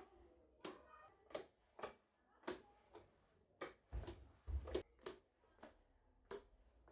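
A series of light, irregular clicks and knocks of household objects being handled and set down, about a dozen in all, with two heavier thumps a little past the middle.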